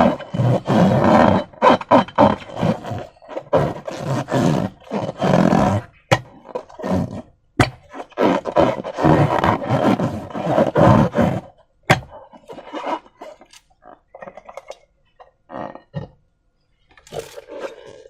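Slime being squished and worked by hand, making wet squelching noises in irregular bursts. There are two sharp clicks in the middle, and the sounds thin out with short pauses near the end.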